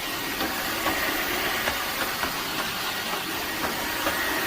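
Dreame H12S cordless wet-dry vacuum mop running steadily in suction mode, taking water up off a hard floor, with a few faint clicks over its even whir.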